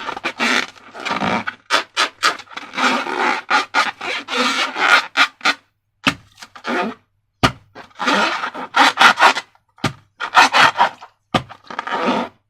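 Rubber balloons and slime being handled. The sound is short, irregular rubbing and scraping noises broken by sharp clicks, with brief pauses in between.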